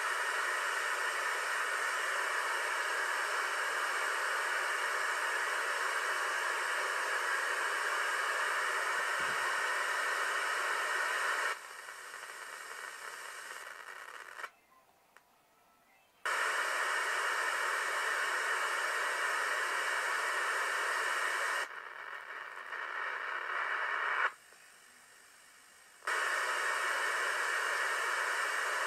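Radio receiver hiss from a 2-metre amateur-band receiver with no station transmitting. The steady static drops away twice, each time for about two seconds, as the receiver is retuned across the band.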